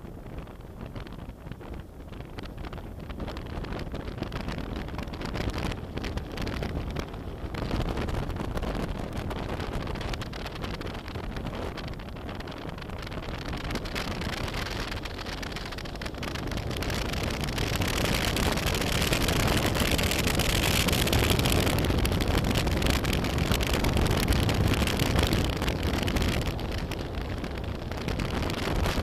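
A BMW F800GS parallel-twin motorcycle being ridden, with wind rushing over the microphone. The noise grows steadily louder and is strongest in the later part.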